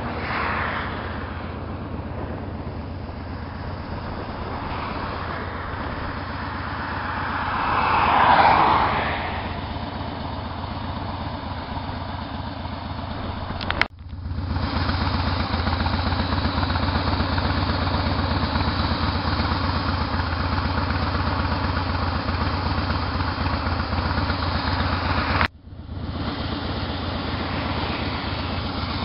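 2007 Harley-Davidson Softail's air-cooled V-twin idling through its exhaust pipes, a steady pulsing low rumble. About eight seconds in, a passing whoosh swells and fades over it. The sound cuts out briefly twice, and after the first break the idle is louder.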